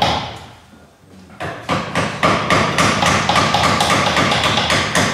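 Hand tools working a wooden rafter joint: a knock about the start, then from about a second and a half in a fast, even run of strokes on the wood.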